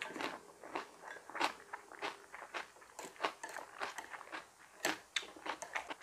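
Close-up chewing of crunchy raw vegetables: irregular crisp crunches, a few each second.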